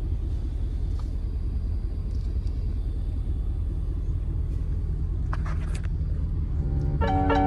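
Snowmobile running under way, a steady low rumble, with a short scratchy burst about five and a half seconds in. Plucked-string music comes in near the end.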